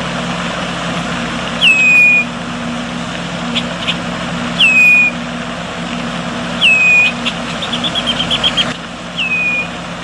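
A songbird repeating one short call, a whistle that slides down and then holds, four times about two to three seconds apart, with a quick run of clicking notes just before the last call. Behind it runs a steady rushing background with a low hum.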